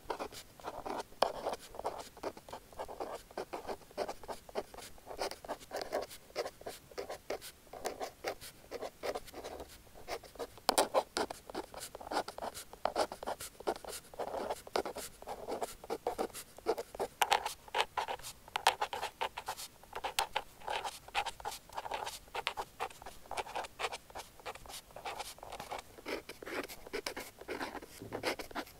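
Close-up pen nib scratching across paper in quick successive strokes of handwriting, with light ticks as the pen touches down.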